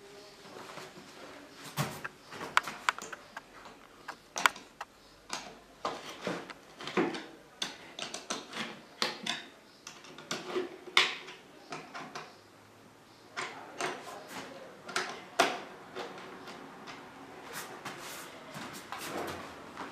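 Irregular clicks, knocks and light clatter of shoe cabinet parts being handled and fitted together during assembly, with a few sharper knocks among them.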